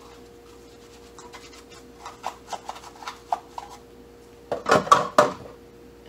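Small plastic-bristled scrub brush scraping over hard plastic pet-fountain parts at a steel sink: a run of short scratchy strokes, then a few louder knocks and scrapes near the end.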